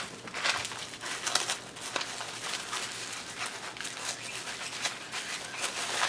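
Packaging crinkling and rustling in irregular bursts as items are handled and rummaged through in a box.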